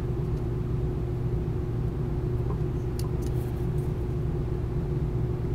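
Steady low background hum, with a few faint light handling clicks about halfway through.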